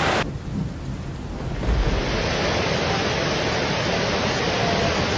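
Steady rushing storm noise of wind and water, with no distinct events. After a cut a quarter second in it is a low rumble, and it opens into a full hiss a little under two seconds in.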